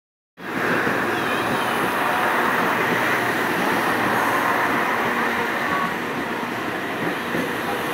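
Iarnród Éireann 22000 Class (ICR) diesel multiple unit running past along the platform as it arrives: a steady rumble of wheels on rails and running gear, with a faint brief squeal about a second in.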